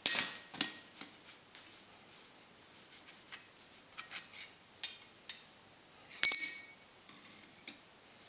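Metal clinks and light taps of blacksmith's tongs and the forged steel bottle opener against the anvil while the piece is rubbed down with beeswax. A sharp, ringing metallic clink about six seconds in is the loudest.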